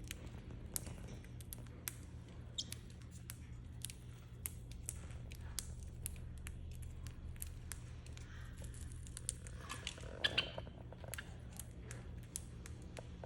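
Pacific parrotlet cracking millet seeds in its beak: a run of small, crisp, irregular clicks, with a brief louder cluster about ten seconds in.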